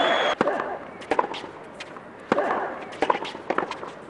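Tennis ball being hit back and forth with rackets on a hard court in a rally, sharp pops roughly a second apart, with shoes squeaking on the court surface.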